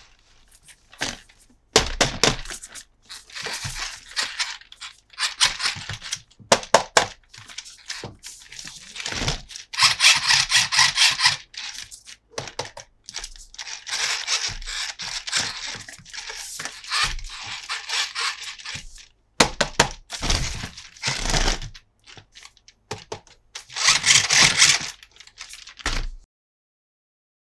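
Plastic toy parts and packaging being handled: many sharp clicks and snaps mixed with stretches of rustling and crinkling, stopping abruptly near the end.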